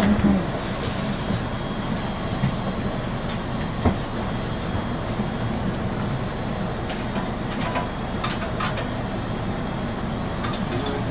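City bus idling, heard from inside the cabin: a steady low engine hum and rumble with occasional small rattles and clicks, a sharper click about four seconds in and a few more near the end.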